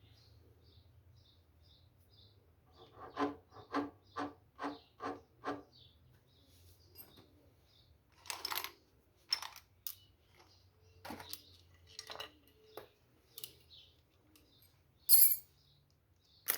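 Metal hand tools and engine parts clinking and tapping during work on a motorcycle engine. A quick run of six even taps comes about three seconds in, then scattered clinks, the loudest a sharp ringing clink near the end.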